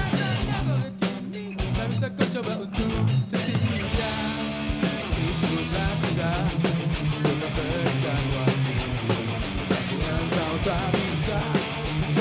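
Live band playing an instrumental passage of a pop-rock song, with electric guitar, bass and a steady drum beat.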